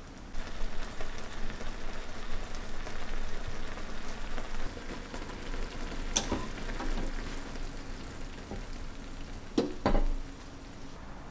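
Beef slices and beaten egg sizzling and bubbling in stock in a frying pan over low heat. There are sharp knocks, one about six seconds in and two close together near the end.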